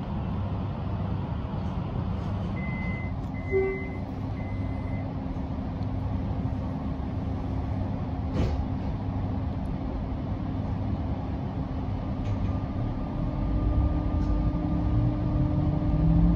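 Metro Trains Melbourne X'Trapolis electric suburban train at a station platform: steady low rumble and electrical hum, with a short run of high electronic beeps about three seconds in. It grows louder near the end.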